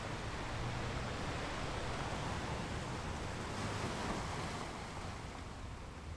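Ocean waves washing onto a shore: a steady hiss of surf that swells a little and then eases off near the end.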